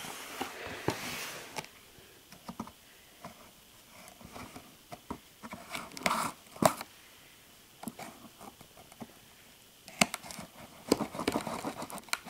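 A taped cardboard shipping box being cut open and handled: tape and cardboard crinkling and tearing, with scattered taps and clicks. The busiest stretches come in the first second or so, around six seconds in, and in the last two seconds.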